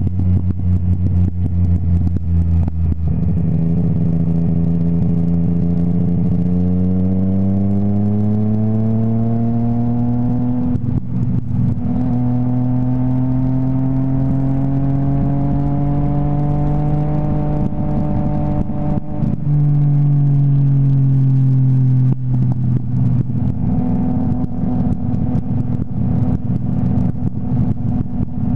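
Motorcycle engine running at speed, its pitch climbing slowly over several seconds, falling again and changing in steps several times as the throttle and gears change, with wind noise on the microphone.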